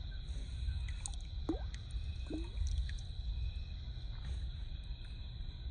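River water gurgling and plopping around hands as a small fish is let go into it, with two short rising gurgles about one and a half and two and a half seconds in. A steady high thin whine and a low rumble run underneath.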